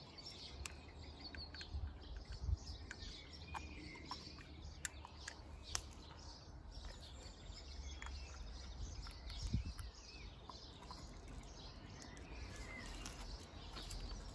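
Quiet outdoor ambience: small birds chirping over a low steady rumble, broken by a few sharp clicks, the loudest about two and a half seconds in.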